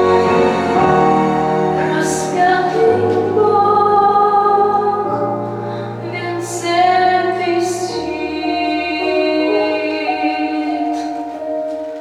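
A song with instrumental accompaniment and sung voices, held notes moving from pitch to pitch about once a second.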